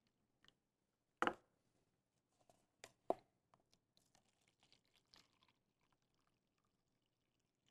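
Coffee being poured from a pot into two cups, faint overall: a few sharp clinks of pot and cups about one and three seconds in, then faint splashing and ticking.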